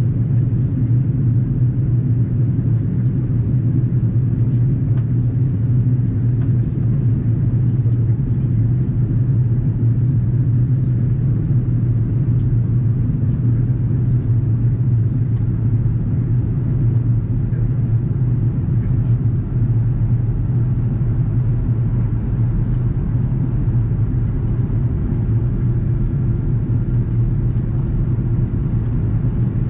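Steady cabin noise inside an Airbus A330-300 airliner on approach: a constant low rumble of the engines and rushing airflow that holds level throughout.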